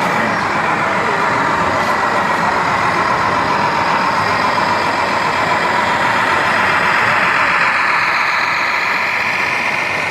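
Diesel truck engine sound from a radio-controlled scale model of a heavy-haul tractor unit, played by its on-board sound module. It runs steadily as the truck drives under load with a long multi-axle trailer.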